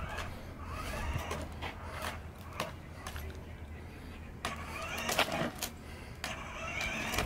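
Kids' electric ride-on dirt motorbike moving slowly on concrete: a steady low hum with scattered clicks and rattles.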